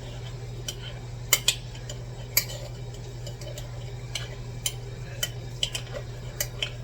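Spoon clinking and scraping against the honey jar and measuring cup while scooping honey, in irregular separate taps, over a steady low hum.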